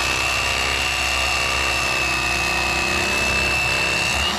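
Mister Twister Electric Fisherman electric fillet knife running steadily with a high whine as its blades slice a trout fillet off along the backbone. It is switched off near the end.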